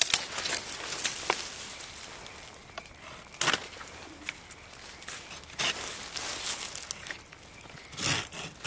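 Dry brush and twigs rustling, crackling and snapping as they are pulled and broken away by hand, in irregular bursts, the loudest near the end.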